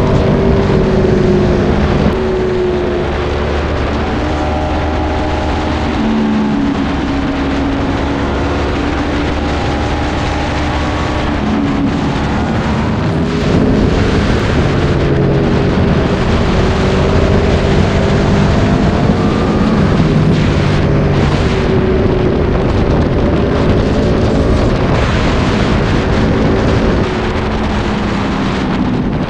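Sport motorcycle engine at speed, its revs climbing and dropping repeatedly through gear changes and throttle, over a dense rush of road and wind noise.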